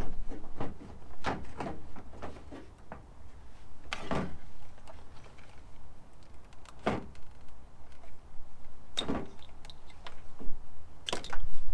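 Plastic clicks, knocks and scrapes from the stock headlight housing of a Toyota Land Cruiser 100 as it is worked loose and pulled out of the front of the truck: about six separate sounds spread out, with a longer scrape a few seconds in.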